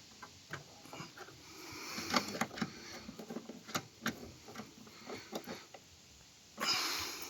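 Faint scattered clicks and light knocks of a hand tool and parts being handled as the tail light's screws are done up, with a louder rustle for about a second near the end.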